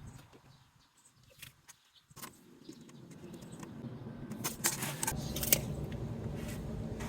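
A few light clicks and knocks over a low steady hum; the first two seconds are near silence.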